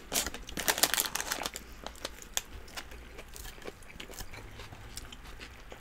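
Forks digging into doner meat and fries in paper-lined boxes, the paper wrappers crinkling, with close-up chewing. A dense run of crackles over the first second and a half, then scattered clicks.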